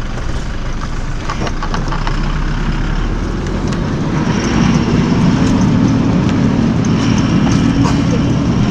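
A vehicle engine pulling along a rough, rocky track, growing louder and heavier about four seconds in as it takes more load, with scattered knocks and rattles.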